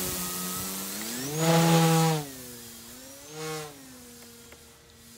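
Electric motor and propeller of an E-flite Timber X RC plane whining in flight, its pitch rising and falling with the throttle. There is a loud burst about a second and a half in and a shorter one near three and a half seconds, and the sound fades as the plane climbs away. The motor is running with a vibration the pilot cannot trace.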